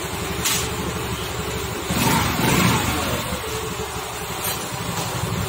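TVS Jupiter scooter's single-cylinder four-stroke engine running on its first start-up test after a rebuild with a rebore and new piston, with the throttle opened briefly about two seconds in before it settles again.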